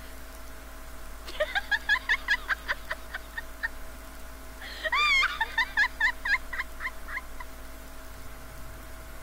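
Two runs of quick, yelping, bird-like calls at about six notes a second; the second run opens with a wavering whoop that rises and falls.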